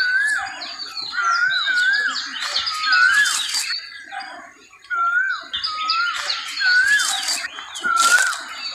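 Asian koel calling, a series of rising whistled notes repeated about twice a second, breaking off around the middle and then starting again. Other birds chirp and trill higher up throughout.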